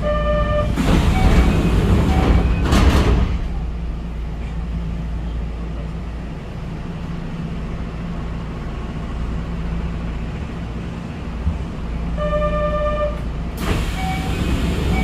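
Door chime of a Kintetsu 6432-series electric railcar sounding briefly, then the doors sliding with a rushing noise for about two and a half seconds. The stopped train hums steadily in between. Near the end the chime sounds again and the doors move a second time.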